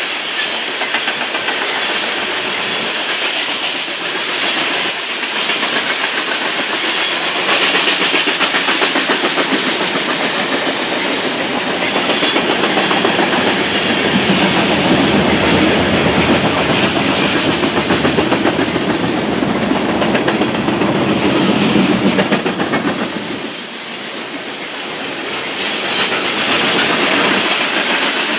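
Covered hopper cars of a BNSF freight train rolling past, their steel wheels clattering on the rails in a fast, steady rhythm.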